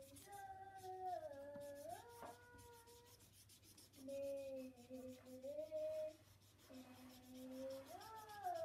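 A young child humming a wandering tune in long, gliding held notes, pausing briefly about three seconds in. Under it, the soft scratchy rub of a felt-tip marker colouring on paper.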